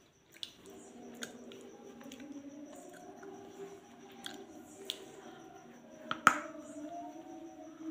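Crisp snaps of a hard, crumbly black lump being bitten and crunched, a few small cracks and then one loud crack about six seconds in as a piece is bitten off, over a faint steady hum.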